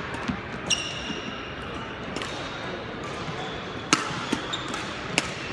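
Badminton rally: sharp racket hits on a shuttlecock, three strong ones spread across a few seconds, with a brief squeak of sports shoes on the wooden court floor at the first hit.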